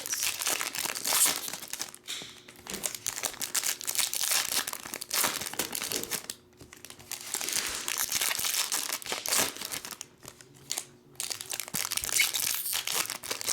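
Plastic packaging crinkling and rustling as trading-card packs are unwrapped, with some tearing, in stretches broken by short pauses.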